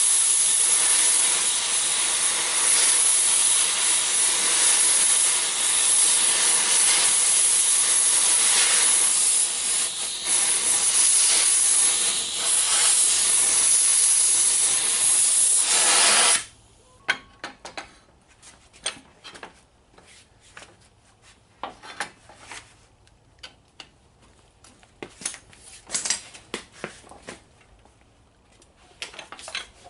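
Cutting-torch flame hissing steadily while heating a bent steel plate, then shut off abruptly about 16 seconds in. After that come scattered light clicks and knocks.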